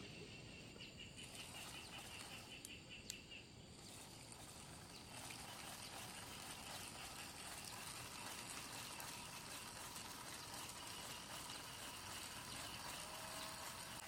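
Faint outdoor ambience: a steady hiss with a rapid, pulsing high-pitched chirping throughout, and two small clicks about three seconds in.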